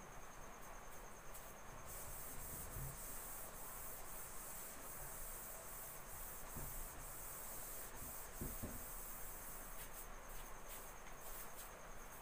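A whiteboard duster rubbing across a whiteboard in a run of strokes as the board is wiped clean, a faint hiss from about two seconds in until near the end. Under it, a steady, high, pulsing insect trill.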